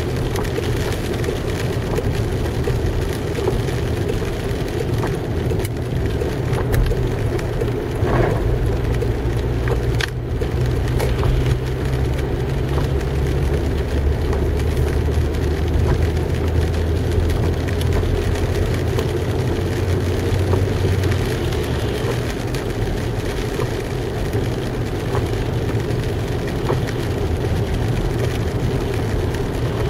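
Inside a moving car on rain-wet roads: a steady engine drone under the hiss of tyres on the wet surface, with the engine note shifting a couple of times and a few faint clicks.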